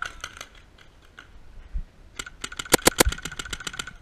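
Paintball markers firing: a few scattered shots, then a rapid string of about a dozen shots around the middle.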